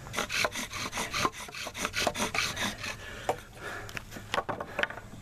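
Bow drill being worked fast: the wooden spindle rasping in the fireboard's notch with each bow stroke, about five strokes a second. A few sharper wooden clicks and knocks follow near the end.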